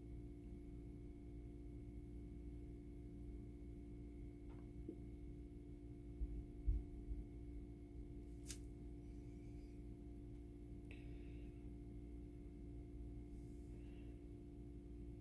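Quiet room tone dominated by a steady electrical hum, with a few faint clicks and soft bumps partway through.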